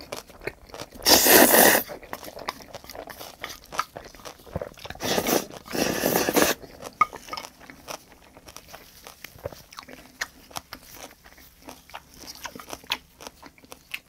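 Close-miked eating of tomato spaghetti: two loud slurps of noodles, about a second in and again around five seconds in, then wet chewing with many small clicks and smacks.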